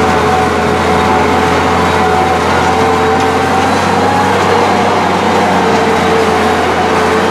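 An engine running steadily, with a constant low hum and a few steady, slightly wavering tones above it.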